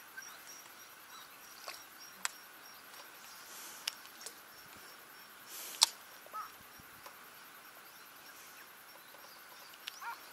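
A baitcasting rod and reel being handled and cast: a few sharp clicks and two short swishes, the loudest about six seconds in, over faint outdoor hiss.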